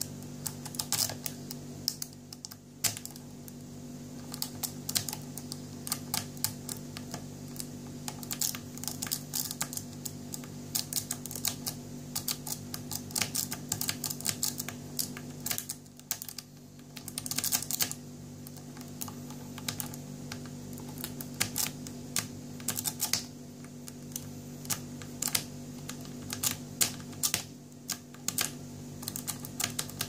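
A rake pick scraping back and forth over the wafers of a small three-wafer TSA luggage lock under light tension, giving rapid, irregular metallic clicking with a short pause about halfway. The lock stays shut. A steady low hum runs underneath.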